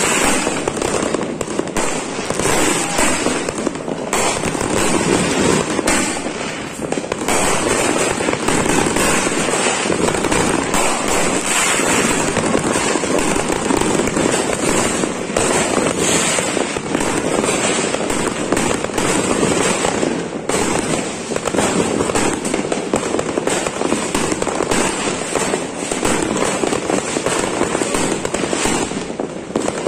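Dense, continuous barrage of fireworks and firecrackers: many overlapping bangs and crackling with no let-up.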